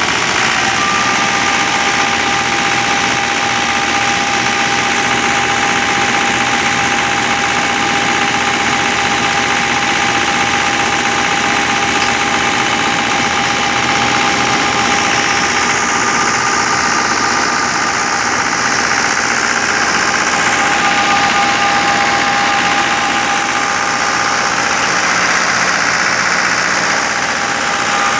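New Holland Fiat 640 tractor's diesel engine running steadily under load, driving a wheat thresher, with the thresher's machinery clattering along with it. A steady high whine holds through the din.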